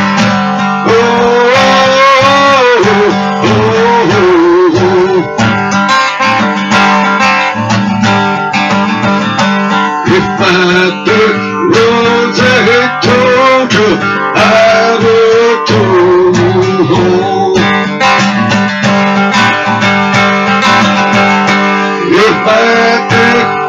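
Acoustic guitar strummed steadily, with a man singing a melody over it in several phrases.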